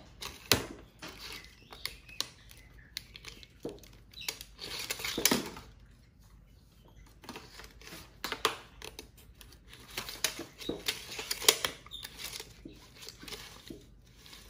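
Tape measure handled by a capuchin monkey: irregular clicks, rattles and scrapes of the steel blade and plastic case as the blade is worked and pulled out, in several clusters with short pauses between.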